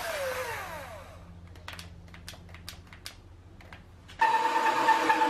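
Cordless drill spinning down with a falling whine, then a few seconds of light clicks and taps of wood and tools on the bench. About four seconds in the drill starts again and runs steadily under load with a steady whine, turning a wooden rod through a clamped block that shaves it into a dowel.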